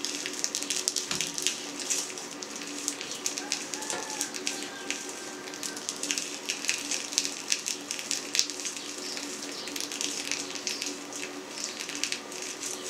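Fine, irregular crackling of a dry edible collagen sausage casing as it is drawn off the stuffer nozzle and fills with sausage meat, over a faint steady hum.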